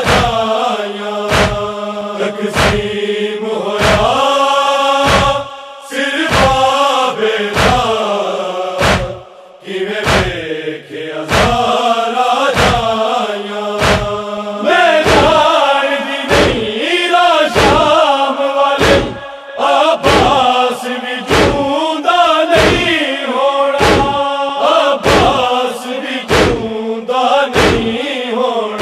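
Men's voices chanting a mournful noha melody over a steady low drone, kept in time by rhythmic matam chest-beating thumps about one and a half a second. The voices drop out briefly around nine to ten seconds in.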